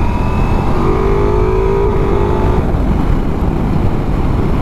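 Ducati Multistrada V4S's V4 engine under way, its note climbing slowly for a couple of seconds, then dropping away about two and a half seconds in. Heavy wind and road rush run underneath.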